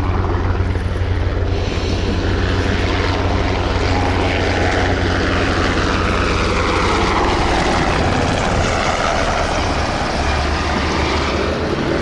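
Sikorsky S-70C helicopter in flight: a steady low rotor beat under a turbine whine that slides down in pitch a few seconds in and then climbs again.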